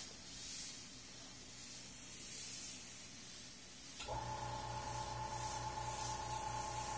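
Airbrush spraying paint in a test stroke, a soft air hiss that swells and eases as the trigger is worked, with the freshly straightened and polished needle now giving a smooth line instead of a skipping, spitting pattern. A steady hum joins about four seconds in.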